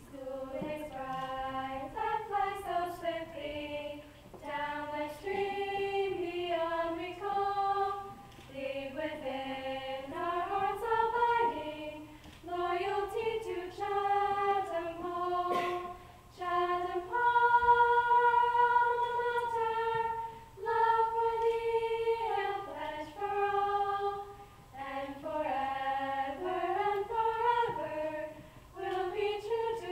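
Female vocal sextet singing a school alma mater a cappella in close harmony, in short phrases with brief breaks between them. A little past halfway the voices hold one long chord, the loudest part.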